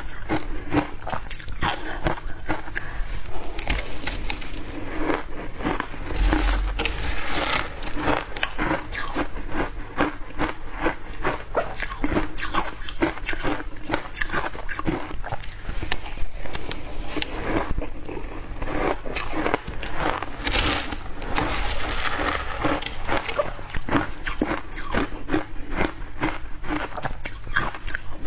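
A person biting and crunching ice: a dense, unbroken run of sharp cracking crunches, many each second.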